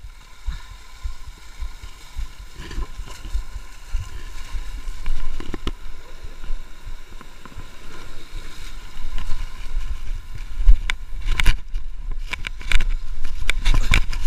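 Wind rumbling on the microphone over sea surf washing against rocks, with a cluster of sharp knocks and scuffs near the end as the camera is handled and carried across the rocks.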